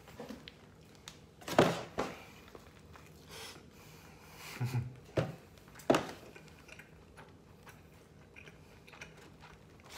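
A person chewing a mouthful of hamburger, with a few short, sharp noises, the loudest about one and a half seconds in.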